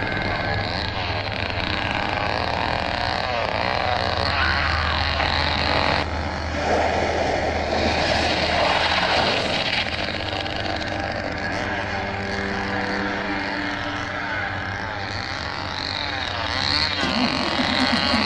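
Chainsaw engine running and revving up and down repeatedly, over a steady low engine hum from the vehicles on the road.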